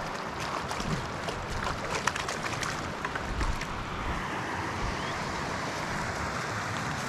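Steady rush of creek rapids, with a flurry of sharp clicks and ticks over the first three and a half seconds.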